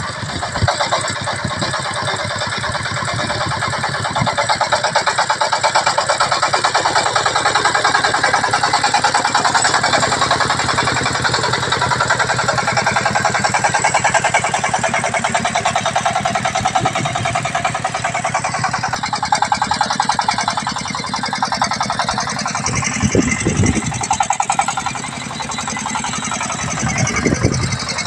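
Single-cylinder diesel engine of a công nông two-wheel tractor chugging steadily under load as it hauls a cart heavy with corn stalks, with a few low thumps about two-thirds through and near the end.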